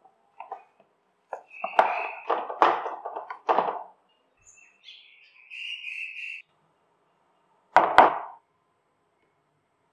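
Metal potato masher squashing boiled potato in a plastic bowl: a quick run of squishing strokes, then a higher-pitched scrape for about two seconds. Near the end, a spoon knocks sharply against the bowl as corn flour is tipped in.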